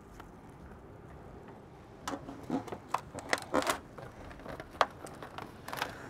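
Disposable aluminium foil pan crinkling and popping as a heavy ham is lowered into it and settled: a quick run of sharp crackles about two seconds in, then a few more near the end.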